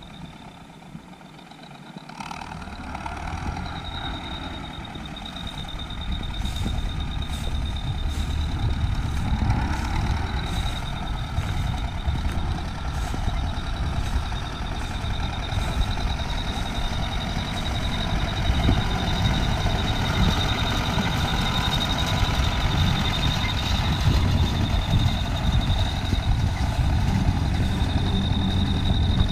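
Tractor engine running steadily over a dense low rumble, growing louder over the first several seconds, with a steady high-pitched whine from about three seconds in.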